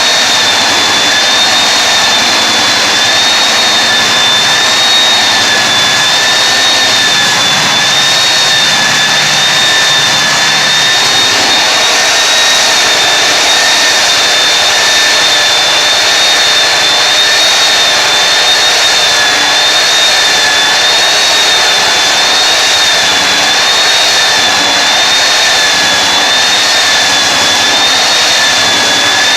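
Belt floor sander running steadily, a loud high whine over a rushing noise, its pitch wavering slightly.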